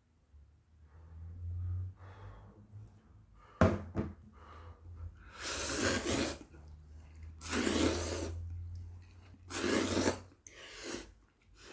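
Slurping steaming-hot instant ramen noodles: three long, loud slurps about two seconds apart. Before them come two sharp clicks, likely metal chopsticks against the pot.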